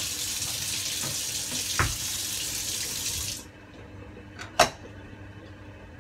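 Water running from a kitchen tap, shut off abruptly about three and a half seconds in; a second later, two short sharp knocks, the second one louder.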